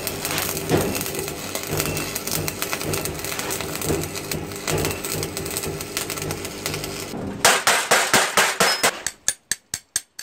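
Stick-welding arc from a Sealey 140XT AC arc welder, burning a rod on steel: a steady dense crackle and sizzle over the welder's low hum for about seven seconds. Then the hum drops out, a few louder crackles follow, and near the end comes a quick run of sharp separate clicks, about five a second.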